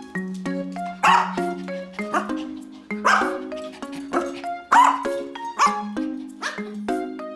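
A dog barking about six times, roughly once a second, over background music with a light plucked-string melody.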